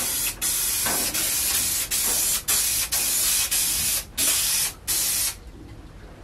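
Aerosol spray can hissing as it is sprayed onto the back of a floor tile, in about eight short bursts with brief pauses, then stopping a little after five seconds in.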